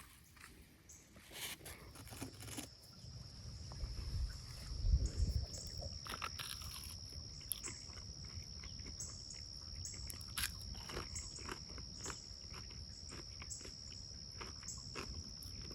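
Faint steady high-pitched drone starting a couple of seconds in, with scattered clicks and crackles throughout and a brief low rumble about five seconds in.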